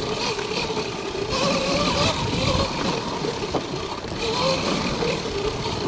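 Sur-Ron electric dirt bike's motor whining, its pitch wavering up and down with the throttle, over the rough rumble and knocks of the bike riding a bumpy dirt trail.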